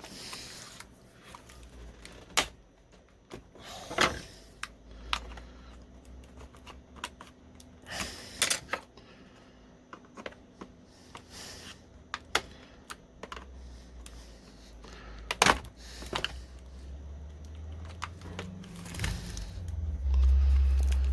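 Irregular sharp plastic clicks and snaps as the Acer Aspire laptop's old keyboard is pried up out of its retaining clips. A low rumble of handling builds near the end.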